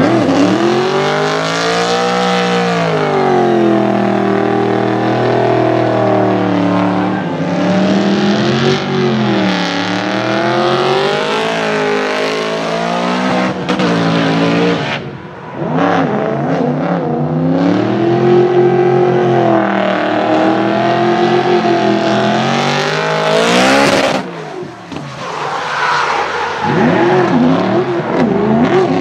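Supercharged BMW M3 E92's V8 engine revving up and down repeatedly as the car drifts, with tyres squealing under the slides. The sound drops out briefly twice, about halfway through and again near the end.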